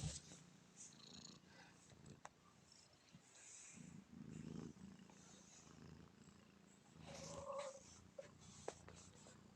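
Cat snoring faintly while asleep, a low rumble that swells with each slow breath, about one every three to four seconds.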